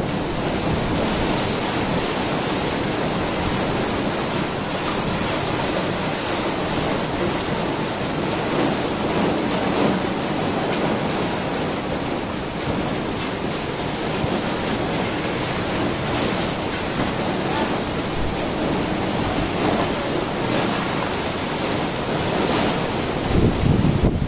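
Squall wind of a severe storm, a steady dense rush with wind buffeting the microphone, surging a little louder near the end.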